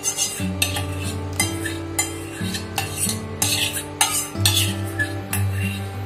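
Steel spatula scraping and clinking against the inside of a stainless steel bowl, repeated short strokes about twice a second, as a thick tomato paste is scraped out into a pan. Background music plays underneath.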